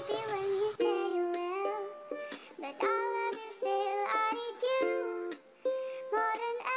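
Background music: a ukulele-led song of short plucked notes.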